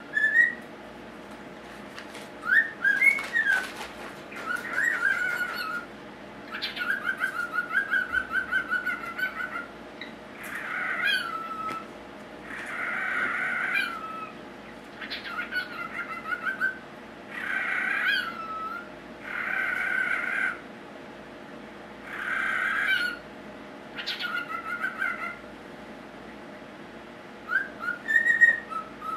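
Cockatiel imitating a telephone ring: rapid warbling bursts repeated about every two seconds, with a few short whistles near the start and end.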